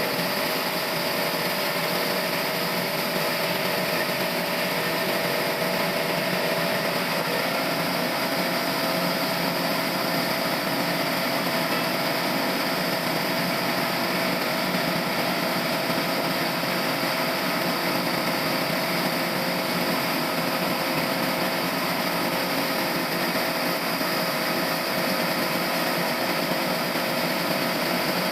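Sawmill machinery running steadily, a constant mechanical whine with a noisy wash over it and no pauses.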